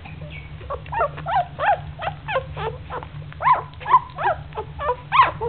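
Five-day-old English cocker spaniel puppies crying: a quick run of short, high squeaking whines, about three a second, each rising and then falling in pitch, typical of newborn puppies calling for their mother.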